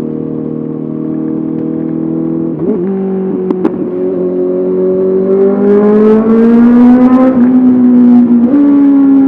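Honda CBR 650R inline-four engine through an SC Project SC1R exhaust on the move: it runs steadily, then its pitch and loudness rise as it accelerates from about four seconds in, levelling off after about seven.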